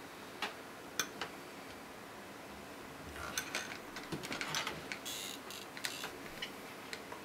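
A thin metal pin clicking and scraping against the titanium pocket clip of a Microtech Tachyon 3 knife as it is worked in to push out the clip's spring-loaded pin. There are a few light clicks at first, a busier run of small clicks in the second half, and a short scrape about five seconds in.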